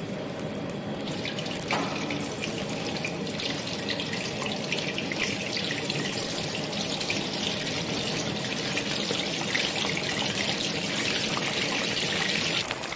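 Peeled baby potatoes deep-frying in hot oil: a dense crackling sizzle that starts about two seconds in, as the potatoes go into the oil, and keeps going strongly from then on.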